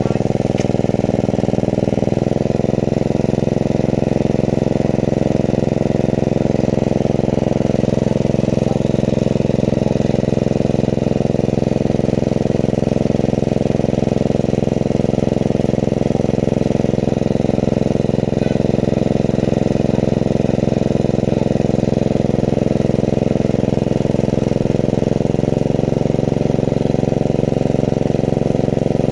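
Small engine-driven water pump running steadily, pumping water out through its blue hose, with a slight change in its note about two seconds in and again near the end.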